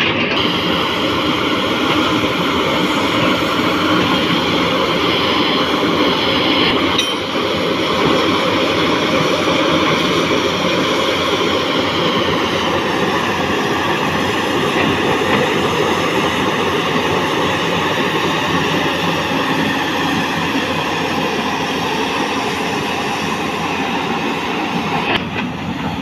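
Tata Hitachi EX210 LC Super excavator running hard, its engine and hydraulics working steadily as it tracks across mud, with a short sharp click about seven seconds in.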